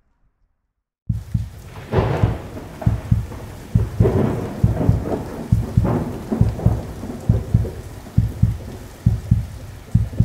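Channel logo outro sound effect. It starts suddenly about a second in: a dense, thunder-and-rain-like noise over a string of low, uneven thuds, about three a second.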